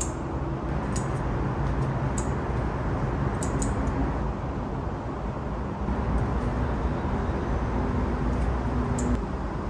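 A handful of short, crisp scissor snips as the lower leaves are cut off potted chili pepper plants, spaced irregularly over a steady low background rumble.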